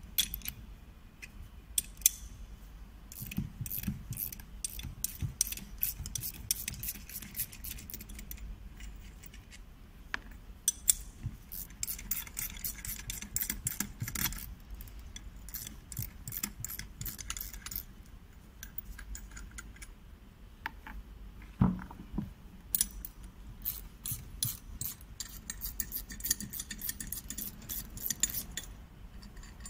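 Small metal clicks, clinks and scrapes as a stainless steel ball valve body and its bolts are handled and worked with a spanner, in dense bursts of ticking, with one heavier knock about two-thirds of the way through.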